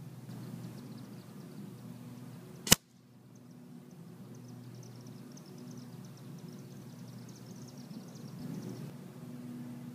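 A single sharp crack about three seconds in: a shot from a Gamo Big Cat 1250 air rifle sending a .177 pellet through a paper target. Under it runs a low steady hum, with faint high chirping after the shot.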